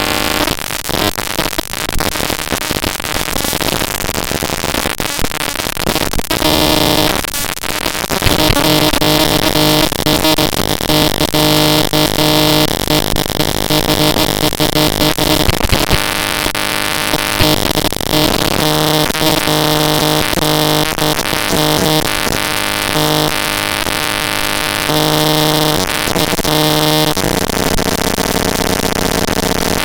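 Raw network packet-capture data played back as audio: a loud, harsh glitch noise of crackling clicks and hiss, with steady buzzing tones that switch abruptly on and off in blocks of a second or two from about eight seconds in.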